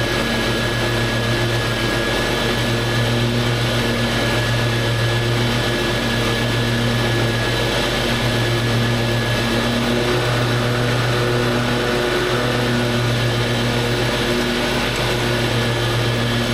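Lawn mower running steadily while mowing, an even motor hum with no change in speed.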